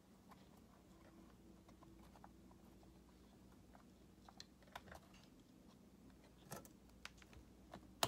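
Near silence with a few faint, scattered clicks and taps, mostly in the second half, as a laptop RAM module is handled and pressed into its memory slot on the logic board.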